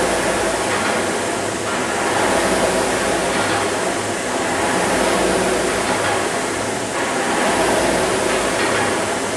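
Air-resistance fan flywheel of a Concept2 indoor rowing machine whirring with a steady rushing hiss that swells with each drive stroke, about every two and a half seconds.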